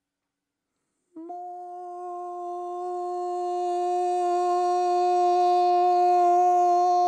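A woman's voice singing one long sustained syllable on a steady pitch. It starts about a second in and grows steadily louder. It is a breath-support warm-up: the note starts soft like a lullaby and gets louder as she leans forward, held until her air runs out.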